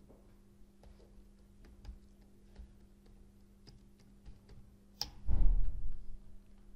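Computer keyboard keystrokes, scattered clicks as a password is typed, then a sharper key click about five seconds in. A louder low rumbling thump follows for about a second, over a steady low hum.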